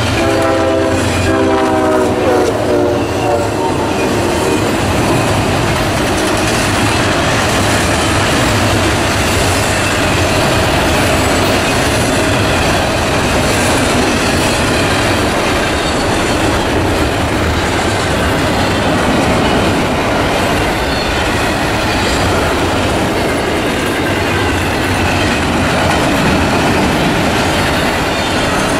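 A train horn sounds a chord that sags slightly in pitch and fades out about three seconds in. Then comes the steady rolling noise of a long double-stack container train's well cars passing close by on the rails.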